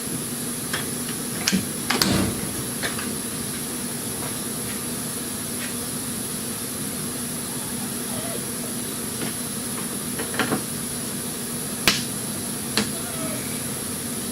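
Scattered short clicks and knocks of hand tools and fasteners as Torx screws and plastic push pins are worked out of a car's plastic underbody panel, over a steady background hum.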